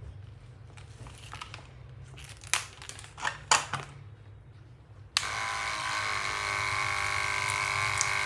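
A few clicks and rustles of hose and fittings being handled, then about five seconds in a Caowang WD01 12 V water pump starts abruptly. It runs with a steady whine and hiss, pumping water out through the hose at full flow.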